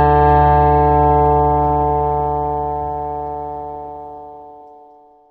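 Background music: a sustained keyboard chord that fades out slowly to silence.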